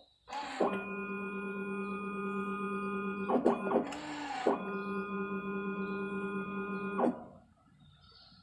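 Automatic paint tinting machine dispensing colorant into a pail: its pump motor whines with a steady tone for about two and a half seconds, stops with a few clicks, then runs again for about as long and stops.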